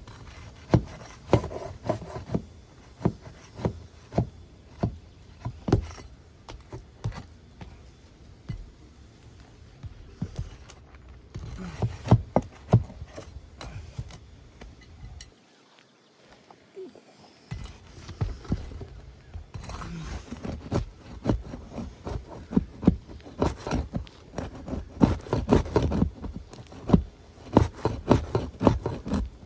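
Hand tools knocking and scraping against asphalt roof shingles as a damaged three-tab shingle is worked loose: irregular sharp knocks with scraping, stopping for about two seconds just past the middle, then coming faster.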